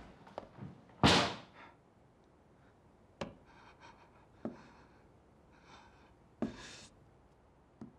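A door bangs shut about a second in, the loudest sound here. After it come a few faint sharp clicks and soft rustles.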